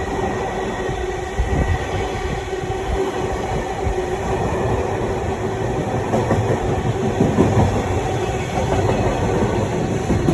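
Freight train rolling by on the rails: a steady rumble of wheels with irregular knocks and a steady hum throughout.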